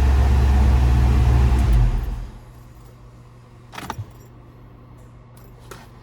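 1995 Ford Mustang GT's 5.0 L V8 running, then cutting off about two seconds in. A light click follows about two seconds later.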